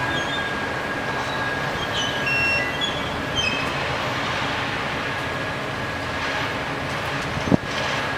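Rail crane's engine running steadily as it holds a suspended track panel, with a faint steady high whine. A single sharp knock comes near the end.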